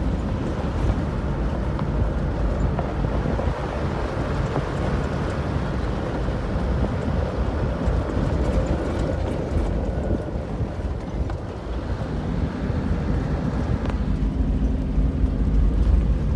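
A moving vehicle heard from inside: a steady low engine and road rumble with wind buffeting the microphone.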